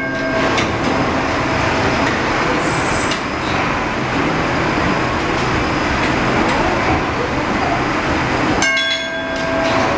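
The 1946 Rankin & Blackmore triple-expansion steam engine of PS Waverley runs with a steady, dense mechanical clatter from its cranks and valve gear. Near the end a bell rings once and dies away.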